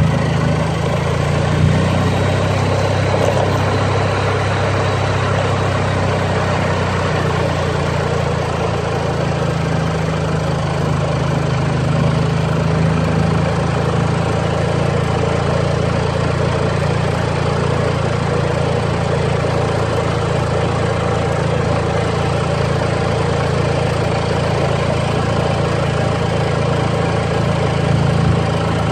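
Small gasoline engine of a 1987 Club Car golf cart running steadily, just after a small adjustment to the carburettor screw, with the head gasket newly replaced.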